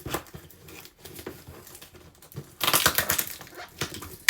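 Toy packaging being handled and pulled at: scattered small clicks and rustles, then a loud stretch of crinkling and crackling a little over halfway through, lasting over a second.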